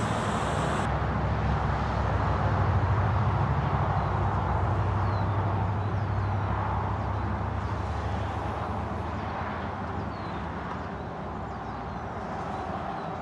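Low rumble of a vehicle passing on a nearby road, swelling about three seconds in and then slowly fading, with a few faint high chirps.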